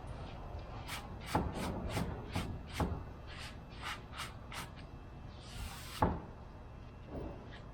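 Workshop handling noises: a run of light clicks and knocks, about two or three a second, then a brief hiss that ends in a sharper knock about six seconds in.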